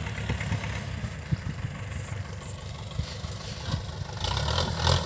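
Tractor diesel engine running, a rough low rumble that turns into a steadier, louder drone about four seconds in.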